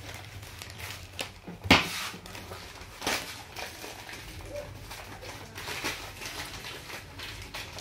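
Plastic courier mailer bag crinkling and rustling as it is handled and pulled at, with a sharp, loud crackle just under two seconds in and another about three seconds in.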